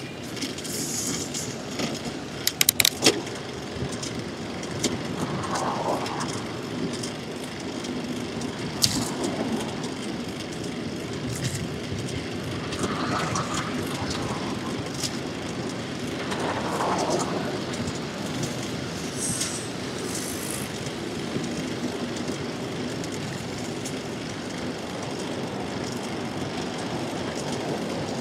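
Steady city traffic and rushing wind heard from a moving bicycle, with a quick rattle of sharp clicks a few seconds in and another click a few seconds later.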